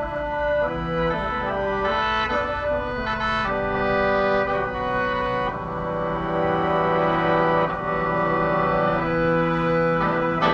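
Khaen, the Lao–Isan bamboo free-reed mouth organ, playing a slow, sad melody in sustained notes, several notes sounding at once over a steady drone.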